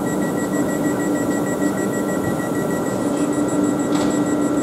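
Steady hum and running noise of a South Western Railway Class 450 electric multiple unit standing at the platform, with a rapid, evenly repeating high-pitched electronic beeping over it. The beeping moves to a higher pitch about three seconds in.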